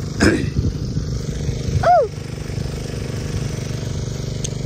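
A small engine running steadily at an even speed, with a short voice-like call about two seconds in.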